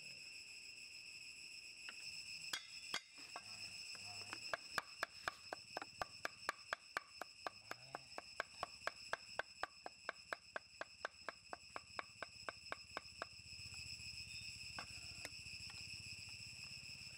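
Cleaver chopping goat meat on a round wooden chopping block, a steady run of sharp chops about three a second that stops about 13 seconds in. Under it runs a steady high-pitched insect chorus.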